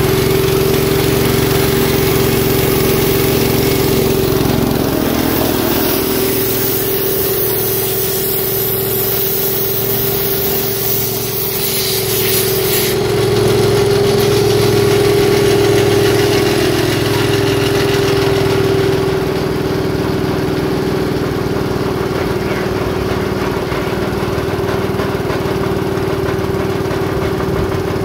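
Rol-Air gas-powered air compressor running: its small gasoline engine turning the belt-driven pump at a steady speed with an even, regular pulse. A hiss rides over it through the middle and cuts off suddenly about halfway through.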